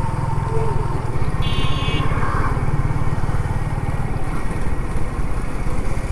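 Suzuki motorcycle engine running at low road speed, a steady low throb heard from the rider's seat. A brief high-pitched tone sounds about a second and a half in.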